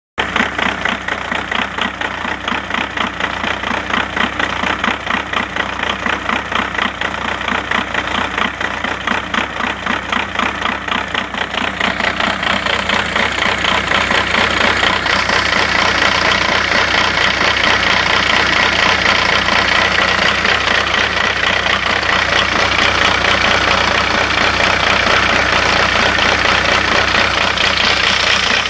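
2000 VW New Beetle TDI's 1.9-litre four-cylinder turbodiesel idling with its clatter, the idle rough and pulsing. It grows louder and steadier about halfway through. The owner, who cannot yet name the cause, notes a very dirty EGR valve.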